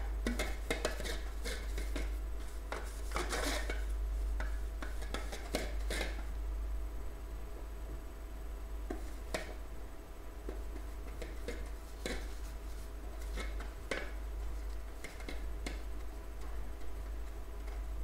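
Pastry brush scraping and tapping inside a metal cake pan as the pan is greased with butter, with small knocks as the pan is tilted and turned. The clicks come thick and fast for the first few seconds, then thin out to occasional taps.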